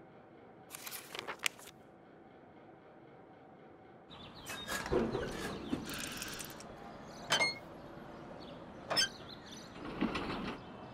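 Sound effects of small wooden trams: light mechanical creaks and clicks. A short creaking burst comes about a second in, then from about four seconds in a louder stretch of creaking and rattling broken by a few sharp clicks.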